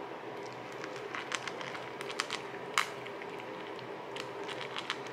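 Yorkie puppy eating dry kibble from a stainless steel bowl: irregular crunching and clicking as it picks up and chews the pieces, the loudest click a little before three seconds in.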